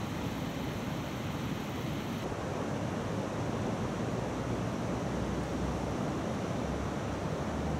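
Steady hiss of light rain falling on still pond water, with a low rumble of wind on the microphone.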